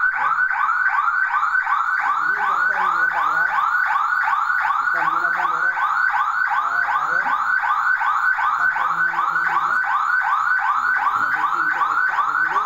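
Electronic siren of a home burglar alarm system sounding continuously: a fast repeating whoop of about four rising sweeps a second.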